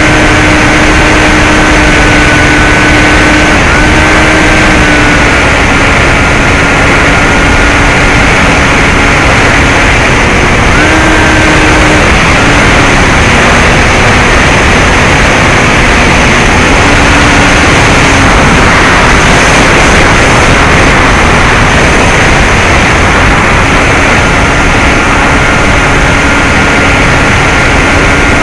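Electric brushless motor and 9x6 propeller of a Bixler 2 RC plane in flight, heard through the onboard camera's microphone under heavy wind rush. The motor's hum steps up and down in pitch several times as the throttle changes.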